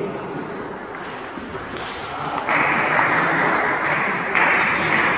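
Table tennis rally: the ball pinging off bats and table. About halfway in, a loud even rushing noise comes in and grows louder near the end.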